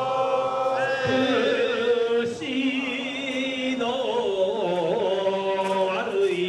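Men's voices chanting a slow Shinto ritual song, holding long notes that waver and shift pitch every second or two.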